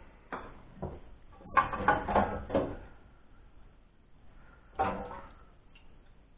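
Glass jars knocking and clinking against a metal pot and each other as they are lifted out and set down, in short clusters of clunks about a second and a half in and again near five seconds, some with a brief glassy ring.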